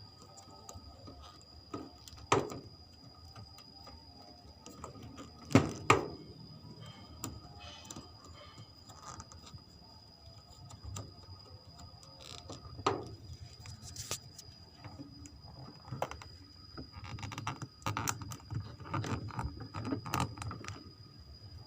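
Scattered knocks and clatter of hands handling parts and tools while working on a washing machine, with a few sharper knocks about two and five to six seconds in and busier handling near the end. A faint steady high whine runs underneath.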